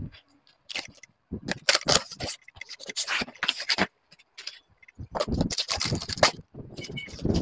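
Cardboard box and packing being handled as an amplifier is unpacked: bouts of scraping and rubbing with short pauses between them.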